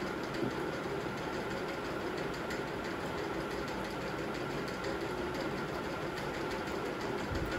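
Steady mechanical hum of a running motor, even and unchanging throughout.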